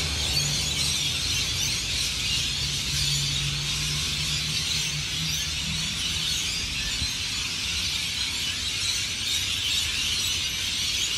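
A large flock of birds calling all at once, a dense, continuous din of many overlapping high calls. A low steady hum runs under it through about the first half.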